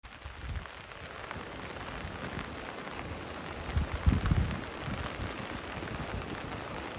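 Steady hiss of heavy rain with scattered drop ticks, over the rush of a flooded river. A few low thumps, like wind buffeting the microphone, are the loudest thing, about four seconds in.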